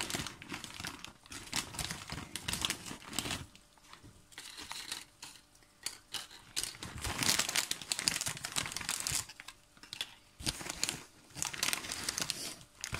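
Crinkling of a nacho chip bag being handled, in three bursts of a few seconds each with short pauses between.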